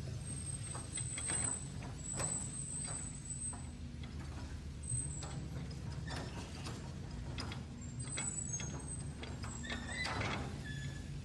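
Electric motors and gears of a radio-controlled toy excavator whirring and clicking as it digs and swings its arm, over a steady low hum, with short high whines coming and going.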